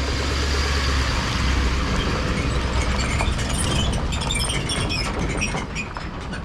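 An engine of a tractor-type machine running at a steady speed, with clattering and rattling over it in the second half.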